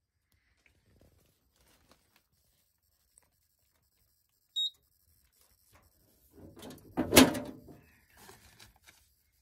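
Near silence, broken about halfway through by a single short, high electronic beep. Then a couple of seconds of clattering handling noise with one sharp, loud knock.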